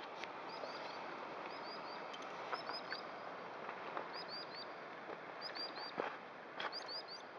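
A small bird calling over and over: quick groups of two or three high, hooked chirps about once a second, over a steady hiss, with a few faint knocks.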